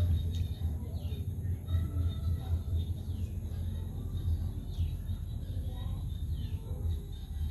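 Low rumbling noise from a handheld phone's microphone being jostled close to the work, with a short high call that falls in pitch repeating about every second and a half.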